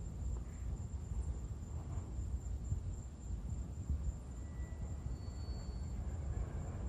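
Outdoor background noise with a steady low rumble and a thin, steady, high-pitched insect drone above it, typical of crickets. Two brief faint whistle-like tones sound about two-thirds of the way through.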